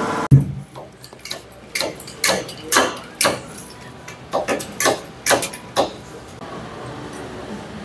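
A workshop air compressor's motor cuts off with a thump, followed by a string of sharp, irregular knocks and taps, about fifteen over some six seconds, then the shop goes quieter.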